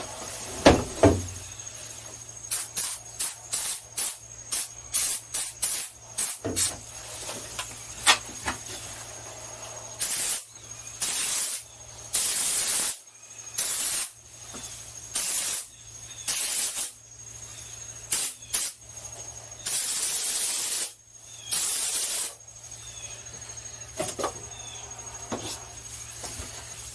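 Spray foam insulation gun spraying in repeated hissing bursts as the trigger is squeezed on and off: quick short bursts at first, then longer bursts of about a second each. A sharp knock comes near the start.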